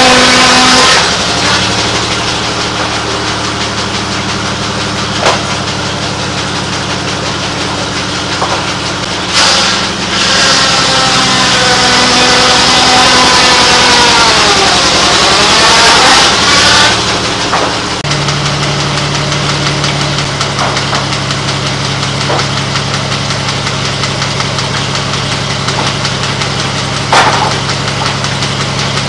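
Sawmill engines running steadily. Twice, near the start and from about ten to seventeen seconds in, a saw cuts through wood with a loud high whine whose pitch sags under the load and then recovers. A few short knocks from the wood handling.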